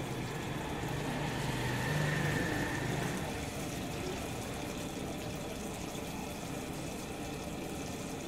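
Shami tikkis frying in shallow oil on a large flat iron tawa: a steady sizzle. A low steady hum runs underneath for the first three seconds.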